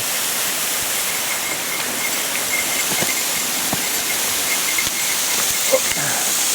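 Waterfall pouring steadily into its plunge pool, a constant rushing of falling water, with a few faint knocks.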